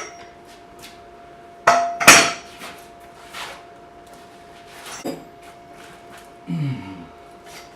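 A series of sharp metallic clanks and knocks, the loudest two close together about two seconds in, then several lighter knocks, over a faint steady hum. A brief low sound near the end.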